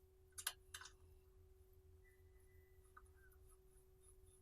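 Near silence while a steel tap is turned by hand to cut a thread in the steering knuckle: two faint clicks about half a second in and another soft click near three seconds.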